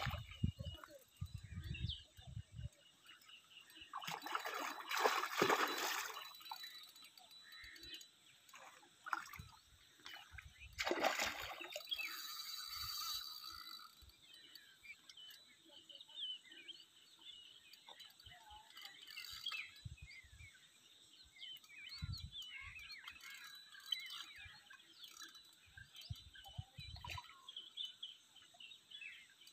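Water splashing at the surface as a mahseer breaks it, in two main bursts several seconds apart: one about 4 s in and one about 11 s in. Faint short bird chirps are heard in between.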